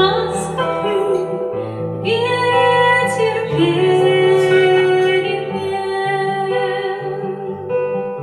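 A woman singing long, held notes of a slow, tender song, with guitar accompaniment.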